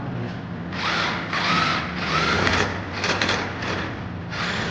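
Cordless impact wrench run in about six short bursts, each opening with a rising motor whine before it hammers, undoing bolts under the front of the car.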